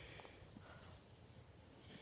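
Near silence: faint room tone between sentences.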